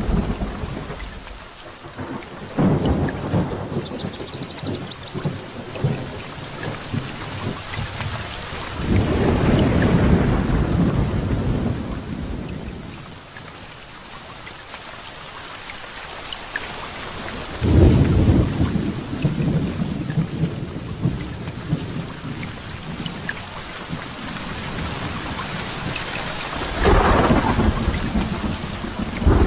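Thunderstorm: steady rain with rolling thunder, loud peals about nine seconds in, around eighteen seconds and again near the end.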